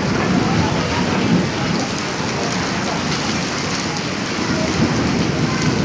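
Steady rain falling, an even wash of noise with no distinct claps or breaks.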